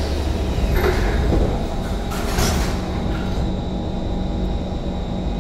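The C151 train's sliding saloon doors and the platform screen doors closing at a station stop, with a short rush of hiss about two seconds in. A steady low hum from the stationary train runs underneath.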